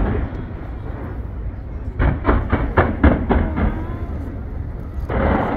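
Fireworks exploding: a quick run of about seven sharp bangs, roughly four a second, starting about two seconds in. A louder noisy burst comes near the end, over a steady low rumble.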